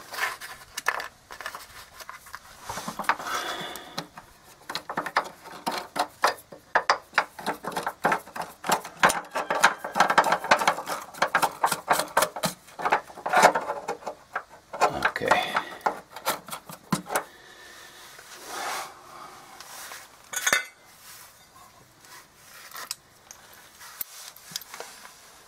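Metal hardware clicking, scraping and rattling as a bolt is worked by hand through a hole in a pickup truck's frame and body mount. The clatter is dense through the middle and thins to scattered clicks near the end.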